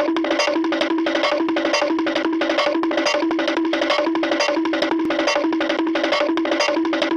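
Music with a quick, even beat of wood-block-like clicks over a short repeating pattern of sustained low notes.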